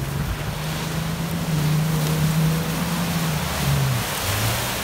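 Off-road SUV engine running hard under load, a steady drone that drops in pitch about three and a half seconds in, over the rushing splash of water pushed aside by the vehicle and wind buffeting the microphone.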